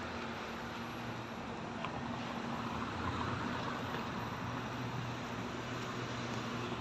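Small cars driving past one after another, a steady hum of engines and tyres on the road.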